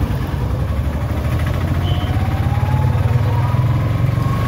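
Motorcycle engines running at low revs close by, a steady low pulsing note, while other motorcycles pass and one engine note rises slowly in pitch.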